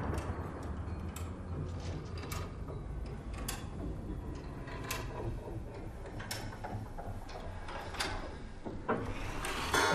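Light mechanical clicks and ticks at irregular intervals, roughly one a second, over a low steady background rumble.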